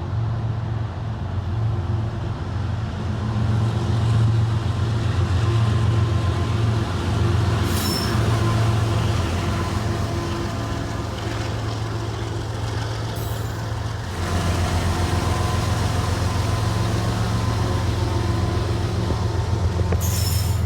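Diesel freight locomotives working under load as the train gains speed: a deep, steady engine throb, with a few short hisses, about 8 and 13 seconds in and again near the end.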